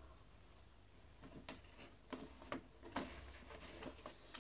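Faint handling noise from a vinyl record and its sleeve: about half a dozen short clicks and taps, scattered through the second half.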